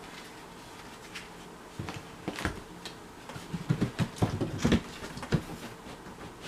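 Scattered wooden knocks and taps as a pine ceiling board is handled and fitted into place, with a quick cluster of knocks about four seconds in.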